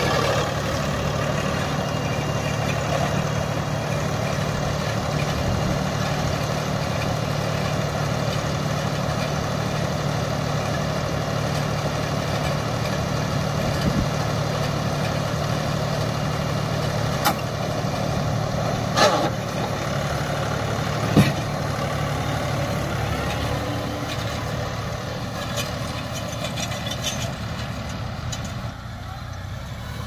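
Sanman 6000 tractor's diesel engine running steadily. A little past halfway come three sharp knocks about two seconds apart, and the sound grows gradually quieter near the end.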